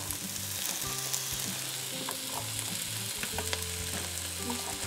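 Diced onion and red bell pepper strips frying in hot oil in a nonstick skillet: a steady sizzle with small crackles and pops.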